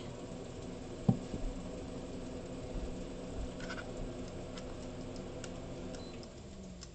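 Faint clicks and taps of a computer mouse on a desk while handwriting is drawn on screen, over a steady low hum, with one sharp knock about a second in.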